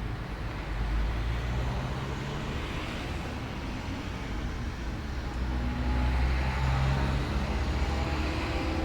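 Road traffic going by: a steady low rumble of vehicle engines and tyres, with faint engine tones in the second half.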